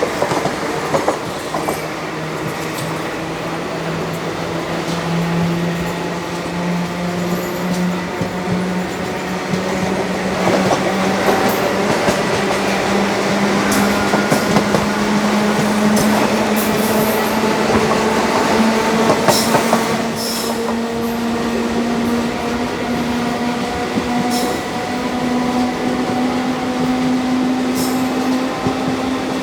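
Indian Railways express train hauled by a WAG5 electric locomotive, heard from a coach window: steady running noise of wheels on rails with a whine that rises slowly in pitch throughout as the train picks up speed, and scattered clicks over rail joints.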